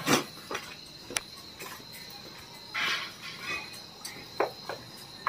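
Crickets chirping, a steady high trill that carries on throughout, with a few scattered clicks and a short rustling noise about three seconds in.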